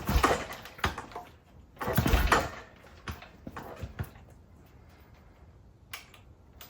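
A 1975 Norton Commando Mk3's engine is kicked over twice with the kick-start lever, about two seconds apart, with a few lighter knocks after. The ignition is still off, so the engine is only being turned over and does not fire.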